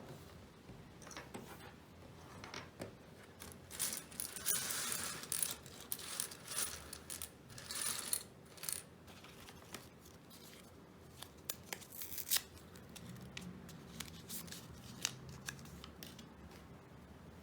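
Small hard clicks and clatter from handling a keyboard being cleaned, with a denser spell of scratchy rubbing about four to nine seconds in.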